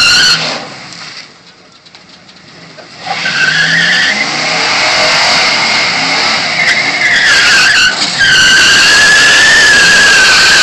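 Dodge Ram pickup's rear tires squealing as they spin in a burnout: a short squeal at the start, a lull of about three seconds, then a long, loud, high squeal that rises at first and then holds steady to the end.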